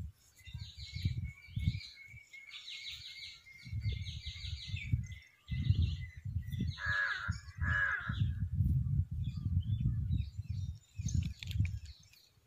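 Birds calling in the open: a rapid series of chirps in the first few seconds, then two loud calls about a second apart just past the middle. Wind buffets the microphone with irregular low rumbles throughout.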